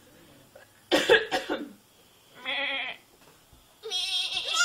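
Young goat kid bleating twice: a short wavering bleat about two and a half seconds in and a longer one near the end. A loud cough-like burst from a person comes about a second in.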